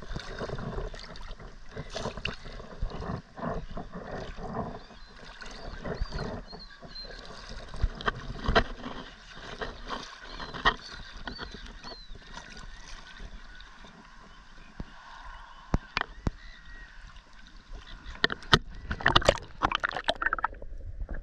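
Shallow seawater sloshing and lapping around a handheld camera held at the surface, with short splashes and knocks as it moves through the water. Near the end it is plunged under, and the sound turns muffled.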